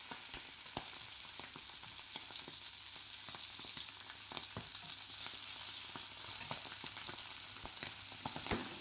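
Chorizo frying in a hot pan: a steady sizzle with scattered crackles and pops as its oil cooks out.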